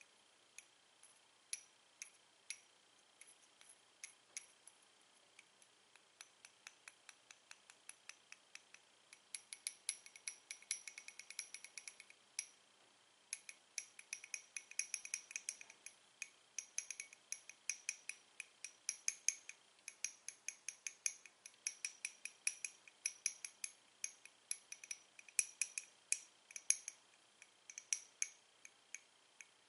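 Two sticks of white chalk tapped against each other: a stream of light, sharp clinks with a short ringing to each, now spaced out, now in quick runs.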